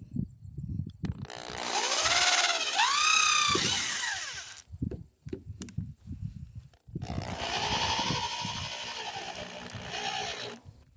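Electric drill driving screws through plywood into the wooden frame, in two runs of about three seconds each, the motor's pitch rising as it speeds up and falling as it slows. Low knocks between the runs.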